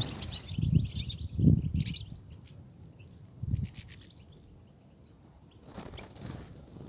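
European goldfinches twittering in quick, high chirps over the first two seconds or so, with a few low thuds, the loudest about a second and a half in. After that it goes quieter, with only faint chirps.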